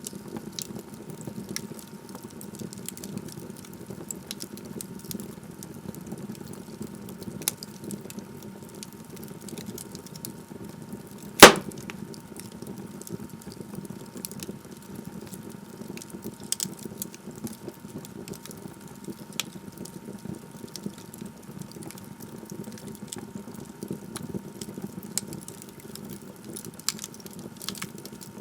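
Log fire crackling in a fireplace: a steady hiss of burning wood with scattered small snaps, and one loud sharp pop a little before halfway.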